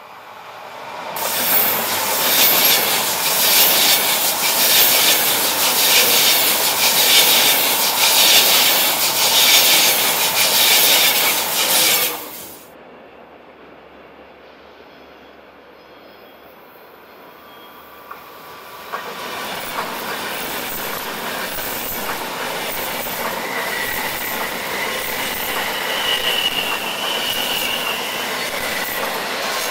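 Trenitalia Pendolino tilting electric train passing close on the track: a loud rush of wheels and air that stops abruptly about twelve seconds in. After a quieter stretch, the train's run-by builds again, with thin wheel squeal as it takes the curve.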